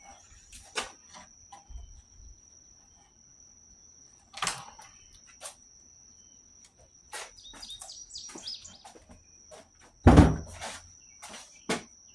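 A steady high insect trill, likely a cricket, with scattered clicks and knocks, a few chirps near the middle and a heavy thump about ten seconds in.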